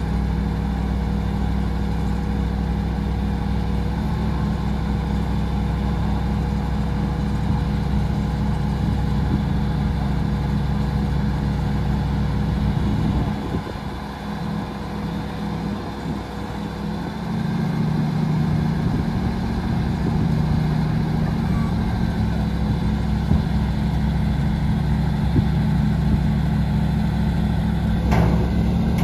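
Medium-duty bucket truck's engine running steadily, powering the hydraulics while the aerial boom is raised. About halfway through the sound dips for a few seconds, then the engine settles on a different, steadier note.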